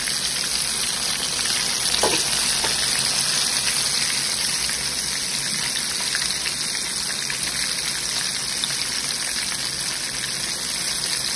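Semolina- and gram-flour-coated bombil (Bombay duck) fish frying in hot oil: a steady, dense sizzle, with a light tick about two seconds in.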